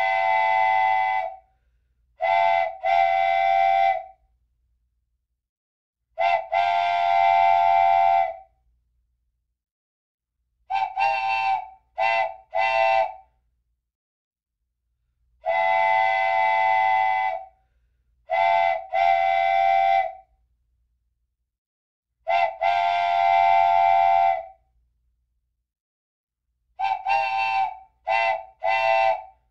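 A chime whistle sounding several notes at once in a repeating pattern: a long blast of about two seconds, then a group of two or three short toots, over and over.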